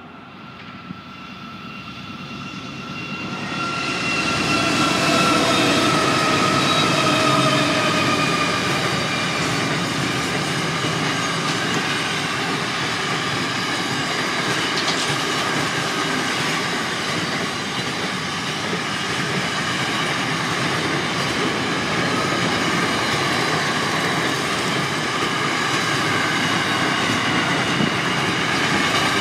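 G class diesel freight train approaching and passing: the locomotive's sound builds over the first few seconds, with tones that fall in pitch as it goes by. The container wagons then roll past steadily and loudly.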